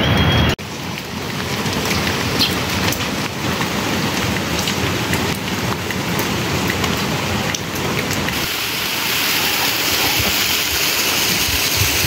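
Steady rain falling, with many small drop ticks in an even hiss, a little louder from about eight seconds in. A half-second of louder, deeper noise at the very start cuts off abruptly.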